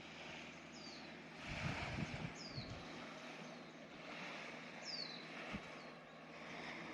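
Faint sea waves washing on the shore, swelling and fading every couple of seconds. A short, high, downward chirp repeats about every two seconds over them.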